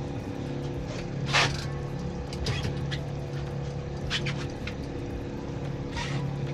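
Boat engine running steadily at trolling speed, a low even drone, with a few brief knocks and rustles from gear being handled on deck.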